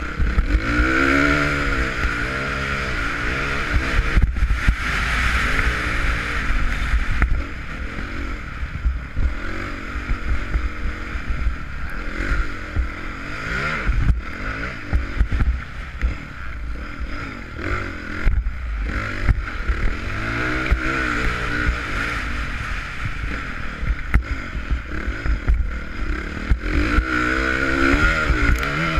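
Honda CRF450 motocross bike's single-cylinder four-stroke engine being ridden hard on a dirt track, revving up and dropping back again and again with throttle and gear changes. Heard from a GoPro in its housing, with a dense low rumble and occasional knocks from the bumps.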